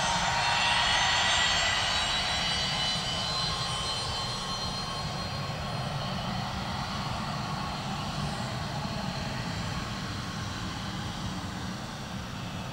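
Fokker 70 jet airliner taxiing along the runway, its twin rear-mounted Rolls-Royce Tay turbofans giving a steady whine over a low rumble. The sound fades gradually as the aircraft moves away.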